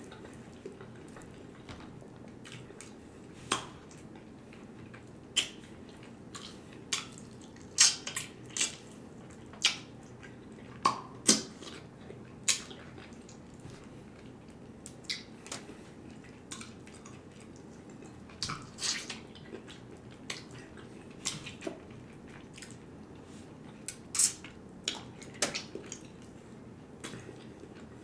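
Close-miked wet eating mouth sounds: chewing and lip smacks, heard as irregular sharp wet clicks about once a second or so.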